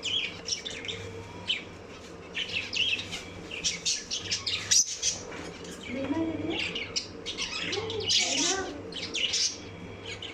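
Fischer's lovebirds chirping and squawking in a rapid, busy chatter of short, high calls, with some lower calls in the second half.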